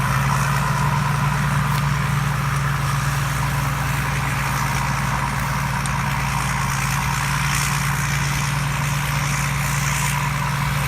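Thai Seng Yont combine harvester running steadily while harvesting rice: a constant deep engine drone with mechanical noise over it, no change in pace.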